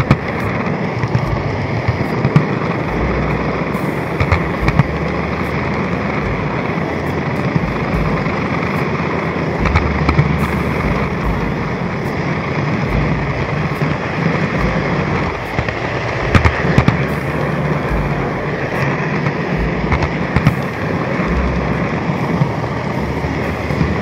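N-gauge model C57 steam locomotive and its train running on the layout track, heard up close from a camera riding on the rails with it: a steady rattling rumble of wheels on rail, broken by frequent sharp clicks.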